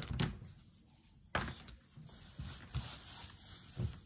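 A sheet of cardboard handled against a cotton T-shirt, then hands smoothing the fabric flat on it: soft rubbing and sliding, with a few light knocks, the sharpest about a second and a half in.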